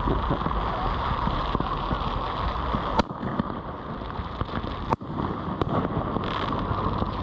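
Consumer fireworks being set off: a steady rushing noise throughout, with two sharp bangs about two seconds apart midway.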